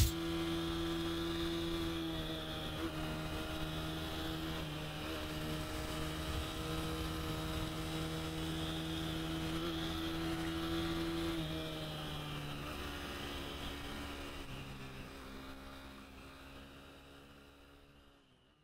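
Motorcycle engine running at a steady speed with a constant drone, its pitch shifting slightly once or twice, fading out over the last few seconds.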